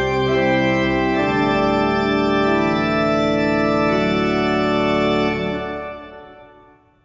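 Church pipe organ playing the closing phrase of a hymn, a few chord changes ending on a held chord that is released about five seconds in and dies away in the church's reverberation.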